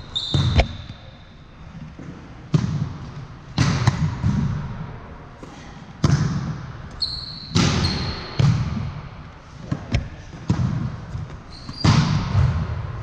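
Volleyball rally on a hardwood gym floor: a volleyball struck again and again by hands and forearms, one sharp slap every second or two, with sneakers squeaking briefly on the floor three times, echoing in the large hall.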